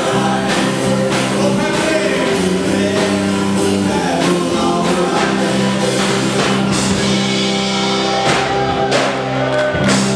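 A band playing rock music with a singer over a steady drum beat and held bass notes.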